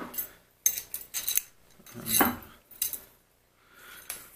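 Small metal spacer rings clinking against each other and against metal parts as they are handled, a few separate sharp clinks with the loudest about two seconds in.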